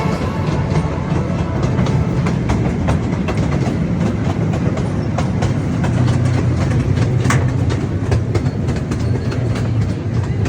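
Zoo ride-on train running along its track: a steady low rumble with frequent irregular clicks and clacks from the wheels on the rails, and one sharper clack about seven seconds in.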